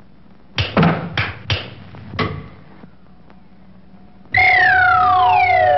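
Cartoon sound effects with the score paused: a few sharp knocks, then about four seconds in a loud whistle-like tone sliding steadily downward over a held steady note.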